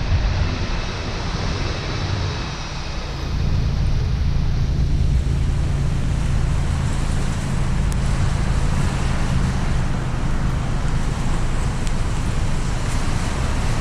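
Car driving on a wet road in the rain: steady tyre and road noise with a low rumble and a faint engine hum.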